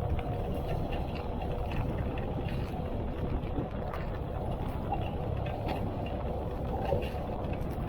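Heavy rain falling, a steady dense noise with scattered faint ticks of drops.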